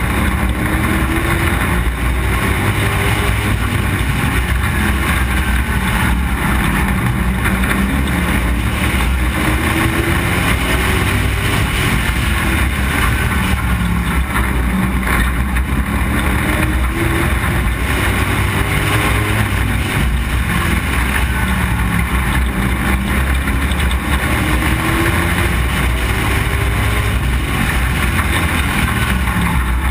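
Street stock race car's engine at racing speed around a short oval: its pitch climbs on each straight and falls back for the turns, about every five seconds.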